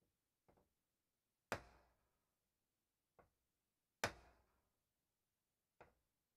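Two heavy hammer blows on the end of a steel chuck-key bar resting on a bench vise's anvil, about two and a half seconds apart, each ringing briefly, with fainter clicks in between. The blows mushroom the bar's end so it sits tight in a hole drilled too big.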